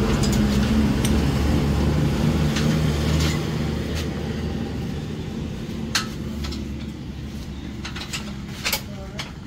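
A motor vehicle's engine running steadily, easing off a little after about three seconds, with a few sharp clicks or knocks near the end.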